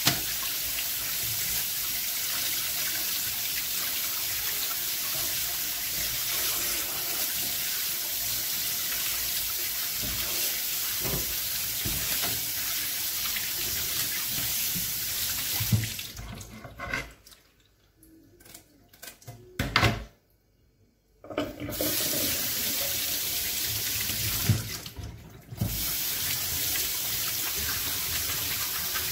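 Kitchen tap running steadily into a sink while catfish pieces are rinsed under it. The rush of water drops away for several seconds past the middle and again briefly near the end, with a few sharp knocks around those breaks.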